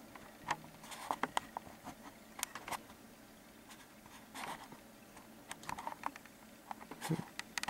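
Hands fumbling over a new camcorder's plastic body in search of its light switch: scattered small clicks, taps and brief rubbing at irregular intervals.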